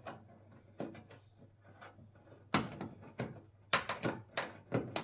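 Sharp knocks and clicks of small car parts and tools being handled: a single knock about a second in, a louder one midway, then a quick run of clicks near the end, as a gas bonnet strut is fitted onto its ball joint.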